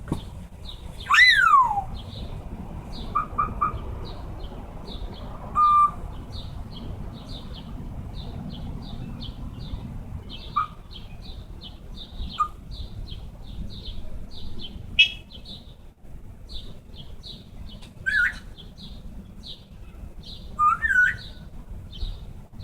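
Pet parrot whistling and calling: a loud falling whistle about a second in, then scattered short whistled notes and squeaks. Behind it, a rapid, even series of high chirps continues throughout.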